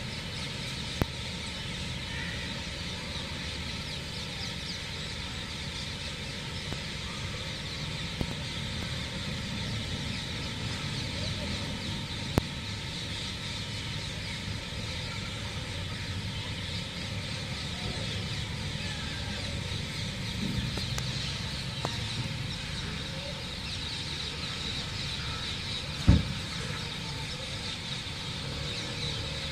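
Steady room noise with a faint hum, broken by a few sharp knocks and thuds, the loudest a thud near the end.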